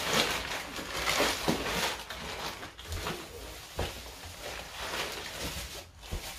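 Gift wrapping paper rustling and tearing as a present is unwrapped, busiest in the first two seconds, with a few soft knocks.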